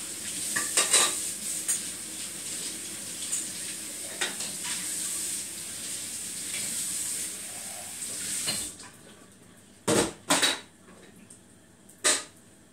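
Hot water running from a kitchen tap, shut off abruptly about two-thirds of the way through, followed by three sharp knocks of kitchenware on the counter.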